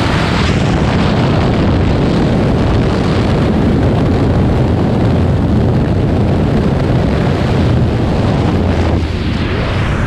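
Jump plane's engines and propeller wash running steadily, with wind buffeting the camera microphone at the open door. About nine seconds in the engine hum drops away and gives way to the steady rush of freefall wind after exit.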